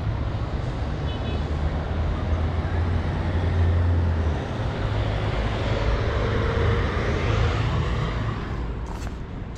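Road traffic noise: a steady wash of passing vehicles with a low engine rumble in the first few seconds, swelling again a little past the middle before easing off.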